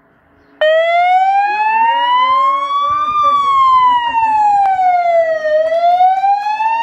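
Loud police car siren switching on suddenly just over half a second in, then sounding a slow wail that climbs in pitch, falls, and starts climbing again near the end.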